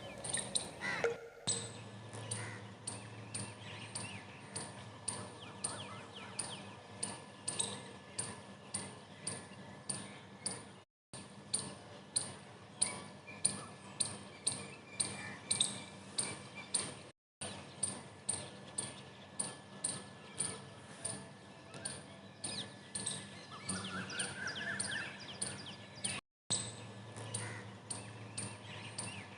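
Small birds chirping, over a sharp tick that repeats about twice a second, with a short rising call about 24 seconds in.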